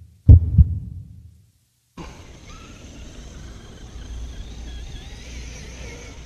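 A pair of deep thumps close together, then after a brief dropout the Traxxas X-Maxx RC truck's brushless electric motor whining faintly as it drives, its pitch rising and falling with throttle, over a low steady rumble.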